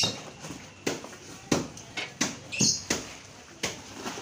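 Packed fish bags and their packing being handled: a string of sharp crinkles and knocks, about one or two a second, starting with a loud one.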